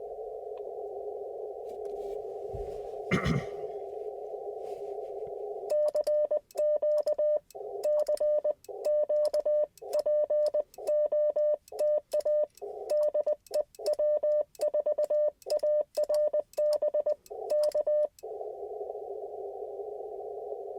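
Icom IC-705 transceiver on 30-metre CW: receiver hiss squeezed through a narrow CW filter, then about six seconds in the radio's sidetone keys out a Morse code call in dots and dashes at one steady pitch for about twelve seconds, the receiver muted while sending. The hiss comes back near the end, and a dull thump sounds a few seconds in.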